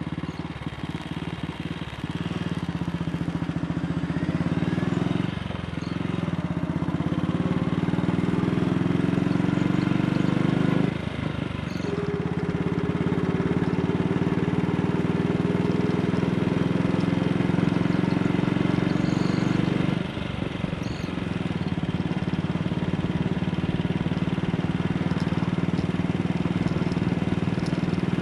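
AJS Model 8 classic single-cylinder motorcycle engine running under way, pulling up through the gears, with brief breaks in the engine note for gear changes about 5, 11 and 20 seconds in.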